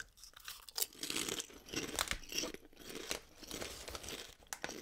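Someone chewing Lay's potato chips: irregular crisp crunching with a few sharper crunches.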